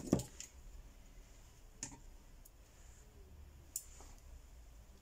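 A few scattered light clicks and a dull knock from small parts and a roll of tape being handled on a phone-repair work table, over quiet room tone.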